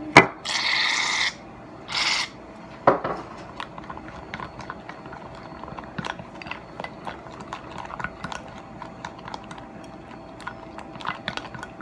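Aerosol can of shaving cream sprayed in two bursts, a long hiss and then a short one, followed by a knock and a run of small clicks and rubbing.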